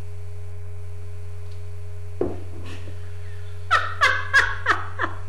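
A woman laughing in about five short bursts, each falling in pitch, as she stumbles up from a kneel. A thump comes a little past two seconds in, and a steady low hum runs underneath.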